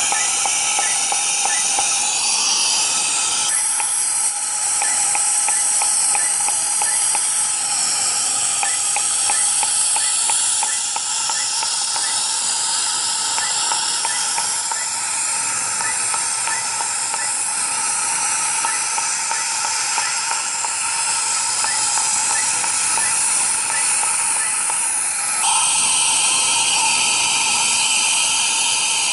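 Er:YAG laser unit in use: a steady, loud hiss with faint, evenly spaced ticks of the laser pulses. The hiss shifts abruptly in tone a few seconds in and again near the end.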